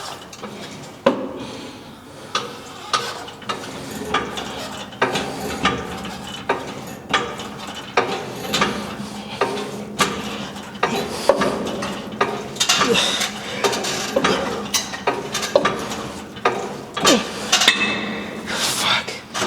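Gym weight equipment clinking and knocking: irregular short metal clanks, about one every half second to a second, over steady gym background noise.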